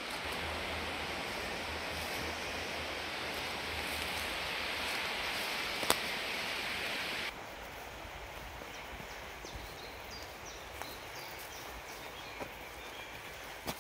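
Woodland outdoor ambience: a steady broad hiss with a low rumble beneath, one sharp click near the middle, then an abrupt drop about seven seconds in to a quieter background with faint short high notes.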